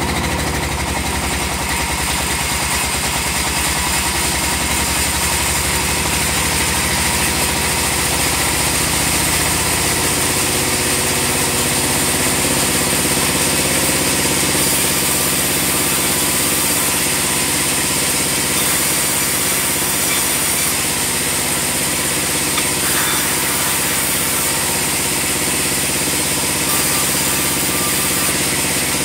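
Band sawmill running steadily: a continuous mechanical drone made of several steady tones. The deepest part of the drone changes about ten seconds in.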